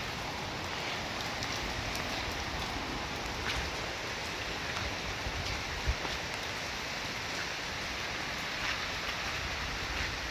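Steady rain falling, a continuous hiss with scattered sharp drops ticking on nearby surfaces.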